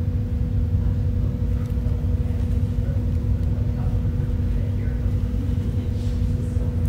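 Steady low rumble of room background noise with a constant hum underneath, and faint rustling of artificial leaves being handled.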